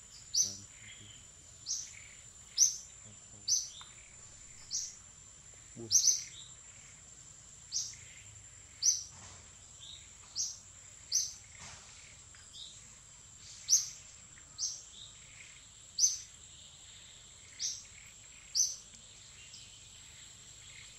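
Bird chirping, short sharp high notes repeated about once a second, over a steady thin high insect whine.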